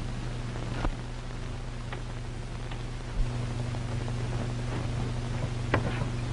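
Steady low hum and hiss of a worn 1930s optical film soundtrack, with a few faint clicks and crackles.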